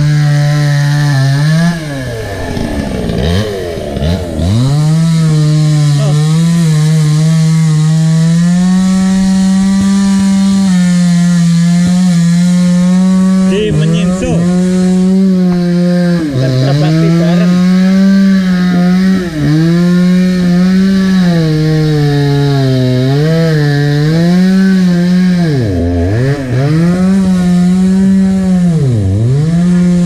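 Two-stroke chainsaw cutting wood, running at high revs. Its engine note drops sharply and climbs back several times: deepest about two to four seconds in, again around the middle, and twice near the end.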